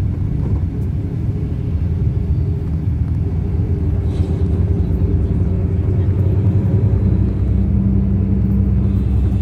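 Steady low rumble of engine and road noise inside a moving bus, with an engine hum that grows a little stronger about seven seconds in.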